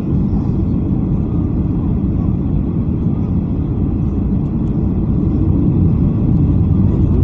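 Steady cabin noise of a Boeing 737-800 on approach: engine and airflow noise heard from inside the cabin, growing slightly louder near the end.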